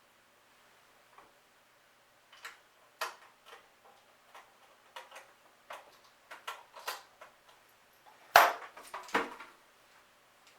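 Irregular small clicks and taps of a screwdriver and screw fastening a hard drive into a Synology DS218j NAS enclosure, with two louder knocks near the end.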